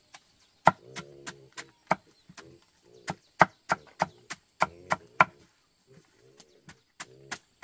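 A knife chopping banana stem for animal feed in quick strokes, about three a second, with a short pause about six seconds in. An animal calls between the strokes.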